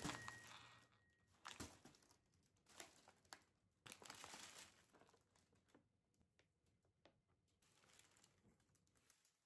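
Faint crinkling and rustling of something being handled, with scattered light clicks and taps.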